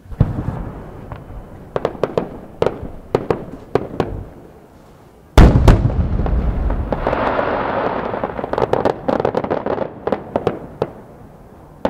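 Paired 12-inch (300 mm) senrin firework shells: a sudden thump at the start and a run of sharp pops, then about five seconds in a heavy boom, the loudest sound, as the big shells burst. After it comes several seconds of dense crackling and popping from the many small sub-shells going off, thinning to scattered pops near the end.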